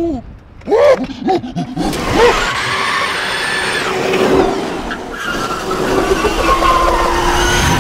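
A few short rising-and-falling calls near the start, then a Razor Crazy Cart drift kart sliding across concrete: a steady motor tone under tyre skid noise.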